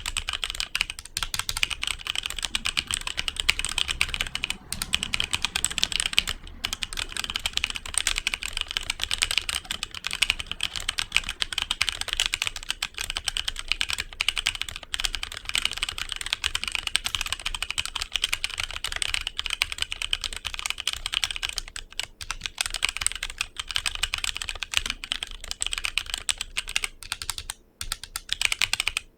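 Steady typing on a HyperX Alloy Origins Core mechanical keyboard with HyperX Aqua tactile switches: a fast, continuous stream of key clacks, with a short break about six seconds in and another near the end.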